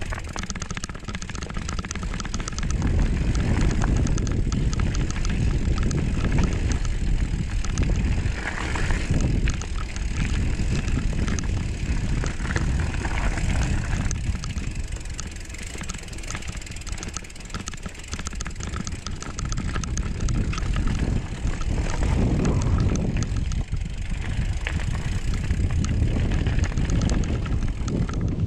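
Mountain bike riding down a dirt trail: wind buffets the microphone and the tyres rumble over the ground, swelling and easing, with many small rattling clicks.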